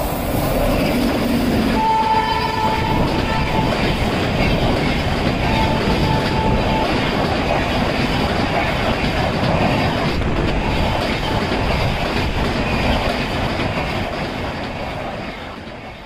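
Indian Railways express passing at speed: a steady, loud rumble of coach wheels on the rails. The WAP-7 electric locomotive's horn sounds twice within the first seven seconds. The noise fades near the end as the last coach goes by.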